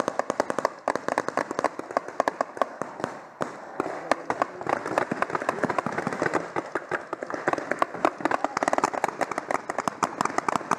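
Several paintball markers firing rapidly at once: a dense, irregular string of sharp pops that gets thicker and louder about halfway through.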